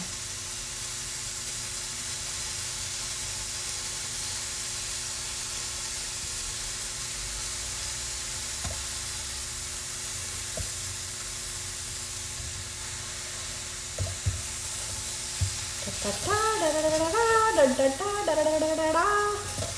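Chopped vegetables sizzling steadily as they fry in a hot pan, with a few knocks of a utensil stirring against the pan about two thirds of the way in. A person's voice comes in near the end.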